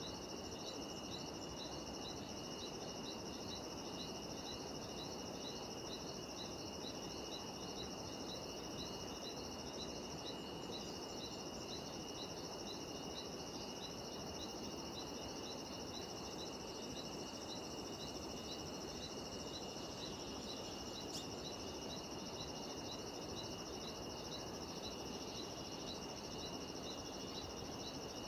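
Cicadas droning steadily on high, even tones, with a short chirp repeating about two to three times a second above them, over a soft, steady background rush.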